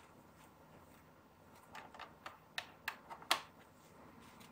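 Small plastic clicks and taps from handling the camcorder while the grip's cable plug is fitted into its side terminal. They come as a string of faint clicks starting about two seconds in, the sharpest one near the three-second mark.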